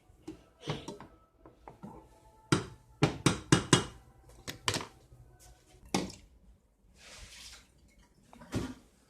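A spoon knocking and scraping against a cooking pot while rice is stirred: a quick run of five or six clanks starting about two and a half seconds in, then single knocks later, with soft scraping or sloshing between.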